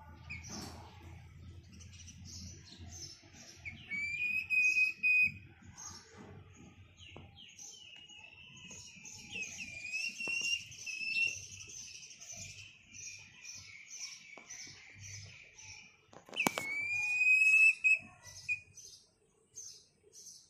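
Young hen calling: a string of short high chirps, about three a second, broken by long, drawn-out high squealing notes about four seconds in, from about eight to eleven seconds, and again near the end. A sharp click comes just before that last note.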